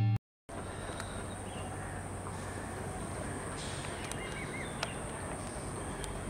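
Outdoor railway platform ambience: a steady background hum with a thin, high, steady whine, a few faint bird chirps and small clicks.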